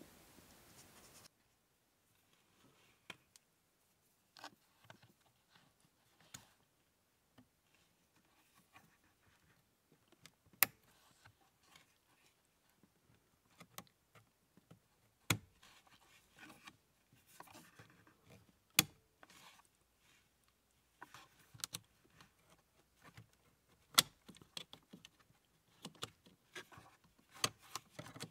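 Faint handling of plastic wiring connectors and their locking levers behind a car's instrument cluster: scattered small clicks and scrapes, with a few sharp plastic clicks standing out.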